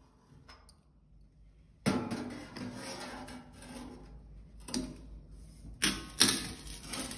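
Background music: after a near-silent start, sharp-attack notes with ringing tones come in about two seconds in, with further strong hits near the end.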